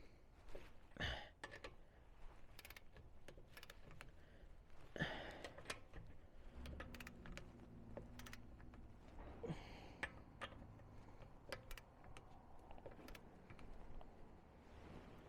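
Faint, irregular clicks and knocks from a click-type torque wrench being worked on a wheel's lug nuts, with a few louder knocks scattered through.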